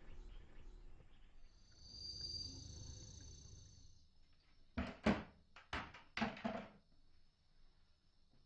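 Faint ambience with a brief high steady buzz, then, just past halfway, a quick run of about six knocks and clatters as aluminium crutches are set down and leaned against a bed.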